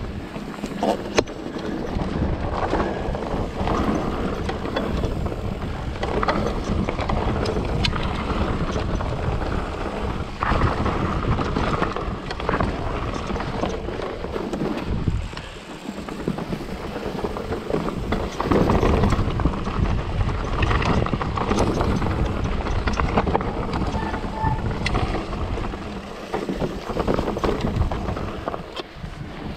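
Mountain bike riding a dirt trail: tyres rumbling over the ground and the bike rattling, with many sharp knocks and clicks, and wind buffeting the microphone.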